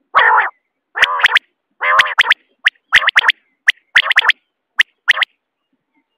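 Common quail calling: a run of short, harsh rasping notes, each breaking into sharp clicks, about one a second, stopping about a second before the end.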